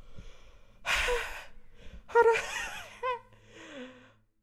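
Beatboxer's mouth and breath sounds. A loud breathy blast comes about a second in, then short pitched vocal notes mixed with breath, and near the end a faint note that slides down in pitch.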